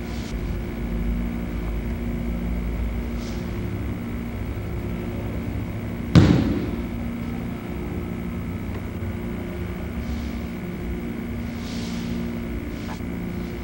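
Steady low hum of room and recording noise, with one sharp thump about six seconds in, typical of a body or hand striking the dojo mat during a pin.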